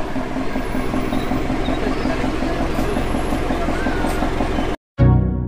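Vehicle engine running with a steady drone and regular throb, heard from the open rear bed where passengers sit. Near the end it cuts off abruptly and electronic music with a strong beat starts.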